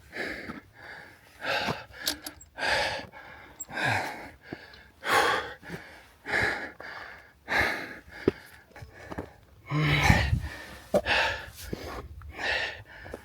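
A man breathing hard and fast through the mouth while scrambling up steep rock, about ten loud breaths at a steady pace of roughly one every second and a quarter: he is out of breath from the climb.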